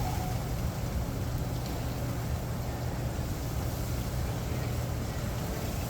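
Steady thunderstorm rain: an even hiss with no thunderclaps, over a low steady hum.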